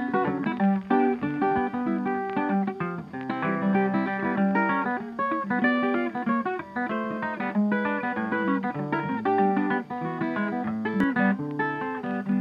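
Background music: an acoustic guitar playing a quick run of plucked notes.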